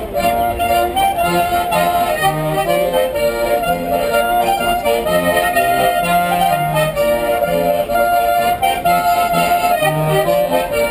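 Accordion playing a lively Slovenian folk dance tune, with a bass line of separate notes under the melody.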